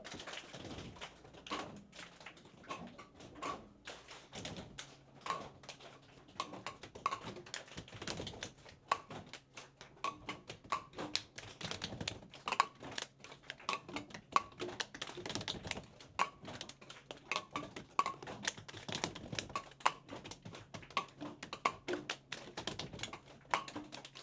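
Irregular light clicks and taps, several a second, with small clinks, from gloved hands handling bottles and equipment on a lab bench. A faint steady hum runs underneath.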